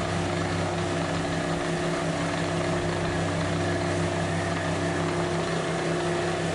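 Water-well drilling rig running steadily: a constant engine drone with a few low held tones, mixed with the hiss of water being blown up out of the borehole.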